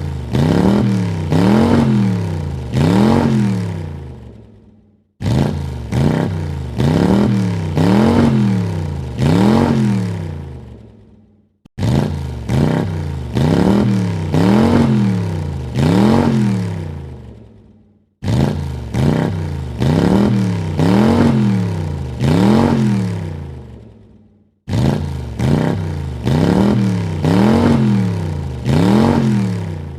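A car engine revved three times in quick succession, its pitch rising and falling with each rev before dying away. The same short recording repeats about every six and a half seconds, five times over.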